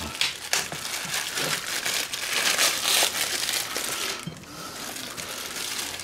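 Clear plastic film wrapper crinkling and crackling as it is pulled open and peeled off a frozen pizza, busiest for the first few seconds and then quieter.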